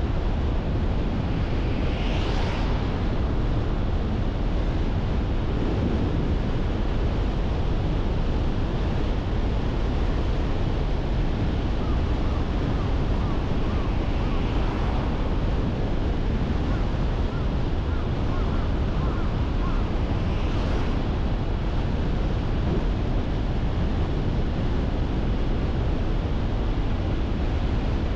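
Steady rumble of road and tyre noise from a car driving through town, with wind buffeting the microphone. A few brief hissing swells rise and fade, about two seconds in, near the middle and again later.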